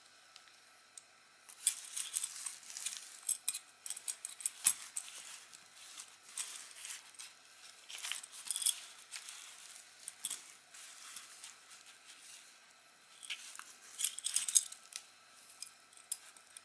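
Small aluminium-alloy bench vise being handled and turned over, making irregular bursts of light metallic clicks, clinks and rattles. The bursts start about a second and a half in.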